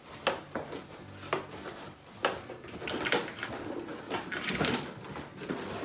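Cardboard figure box and its plastic packaging handled by hand as it is opened: scattered sharp clicks and taps, with denser crinkling in the second half.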